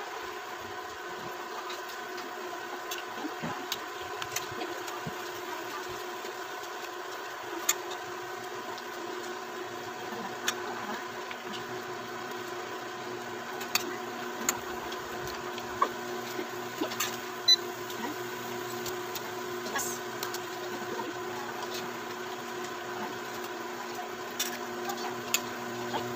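Induction cooktop running with a steady hum and whine of several steady tones under a stainless steel pot of water. Scattered light clicks and taps as a spoon and hands turn cabbage leaves in the pot.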